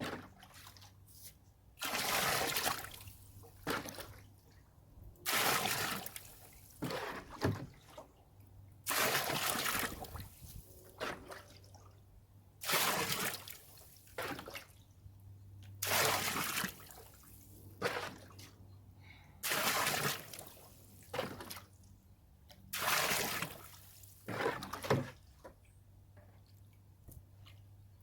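Rainwater being scooped out of a wheelbarrow and poured into a trash can, in repeated splashing pours about every three and a half seconds, each followed by a smaller splash or drip.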